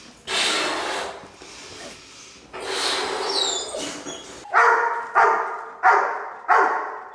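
Two long breaths blowing up a latex balloon, then from about four and a half seconds in a golden retriever barking at the balloon, about four loud barks evenly spaced, a little under a second apart.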